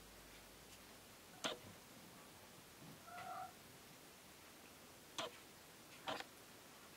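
Young kittens, about three weeks old, giving four short, faint, high mews spaced a second or more apart, one of them a slightly longer, clearer-pitched mew about three seconds in.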